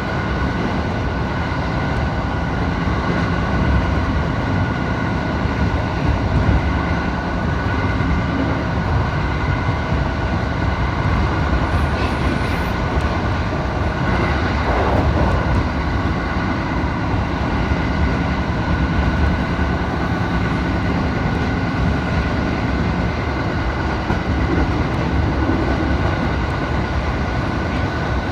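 Steady running noise inside a train carriage: a low rumble of wheels on rail with faint steady humming tones above it. The train is held to about 25 km/h by a strong-wind speed restriction.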